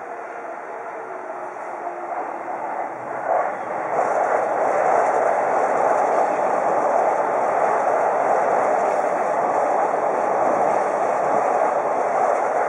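Electric commuter trains on the tracks below. A passing train's motor whine falls in pitch over the first couple of seconds. From about four seconds in, a louder steady rumble of wheels on rail takes over as a JR Yamanote Line train approaches and runs underneath.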